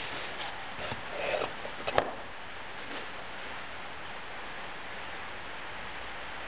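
Damp moulding sand tipped from a plastic container into a wooden moulding flask, a crumbly rustle with a few knocks ending in one sharp knock about two seconds in. Afterwards hands spread and press the sand in the flask under a steady background hiss.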